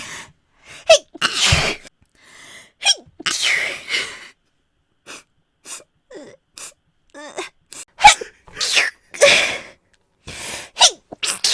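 A woman sneezing again and again, about eight sneezes in a row. Each is a short, abrupt burst, some with a quick rising 'ha' lead-in, and quiet breaths in the gaps between them.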